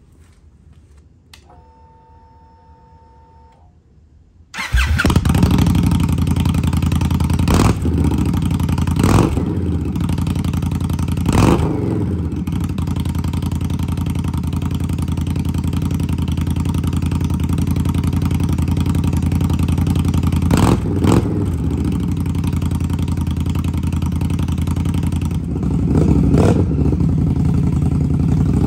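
Indian Scout Rogue's V-twin on Radiant Cycles GP Shorty slip-on exhausts with the baffles fitted, starting about four and a half seconds in and then idling loud, with about five quick throttle blips. Before the start there is a faint steady whine.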